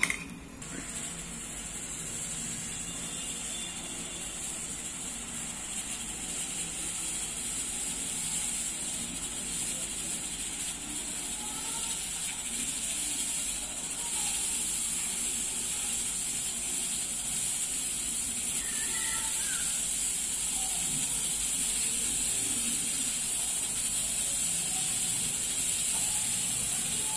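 Aluminium pressure cooker on a gas burner hissing steadily as steam escapes at its weight valve while pressure builds toward a whistle. The high hiss starts about a second in and slowly grows louder.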